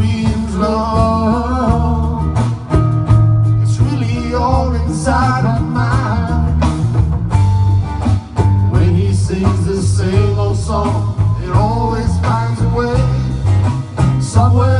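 Live band music: electric bass and acoustic guitars over drums and percussion, with a lead melody that slides and bends above a heavy, moving bass line.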